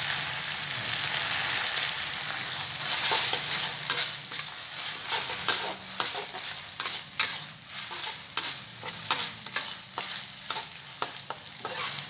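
Chopped chillies sizzling in oil in a metal wok while being stirred with a metal spatula: a steady hiss at first, then from about four seconds in the spatula scrapes and knocks against the wok about twice a second.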